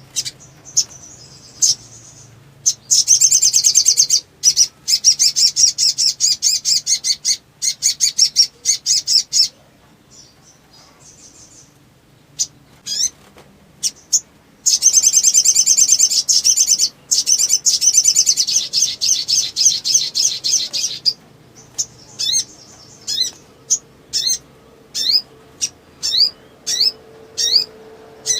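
A sunbird (sogon) singing vigorously in long, very rapid chattering trills: two extended high-pitched bursts, separated by a few single chips. Near the end it shifts to a quick run of short sharp notes.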